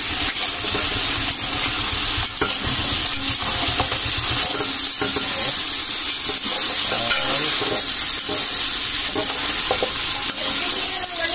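Duck meat sizzling steadily as it fries in its own rendered fat in a metal pot, while a metal spatula stirs it, scraping and clicking against the pot now and then.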